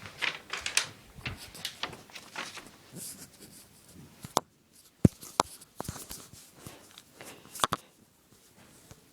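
Paper rustling and crinkling as it is handled for cutting with a pocket knife, followed by a handful of sharp clicks and knocks from handling.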